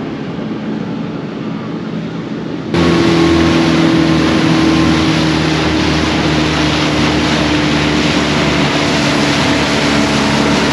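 Steady hum of a Leopard 45 catamaran's diesel engines motoring under way, with water rushing past the hull. About three seconds in it jumps abruptly louder, with the engine hum and the wash of the wake stronger.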